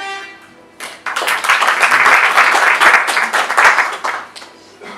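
A small audience applauding: a dense round of hand clapping starts about a second in, lasts about three seconds and fades out. A short held musical note ends just before it.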